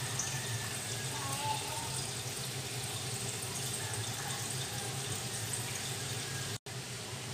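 Gas stove burner flame hissing steadily under eggplants charring on a wire rack, with a low hum beneath the hiss. The sound cuts out for an instant near the end.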